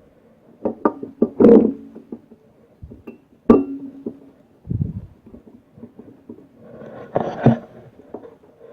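Metal clinks and knocks from a Tecumseh lawnmower engine's flywheel being set back onto the crankshaft and turned to line its keyway up with the new flywheel key, with one sharp ringing clank about three and a half seconds in.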